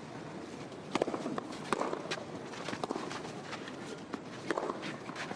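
Tennis ball struck by racquets in a rally on a clay court: a string of sharp pops, starting with the serve about a second in, with players' shoes scuffing on the clay between shots.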